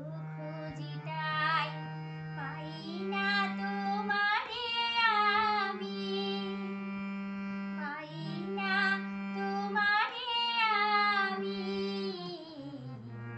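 A woman singing a Bengali song, accompanying herself on a harmonium. The harmonium holds steady low notes that change in steps, under a voice that bends and slides through ornamented phrases.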